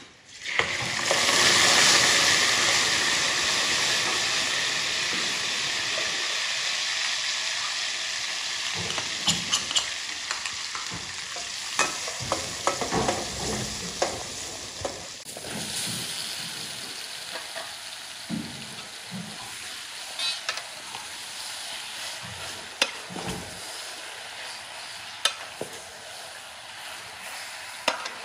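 Dark sauce poured into hot oil in a stainless steel pot, sizzling loudly as it hits about half a second in, then the sizzle slowly easing off. A metal ladle stirs through it, clinking and scraping against the pot.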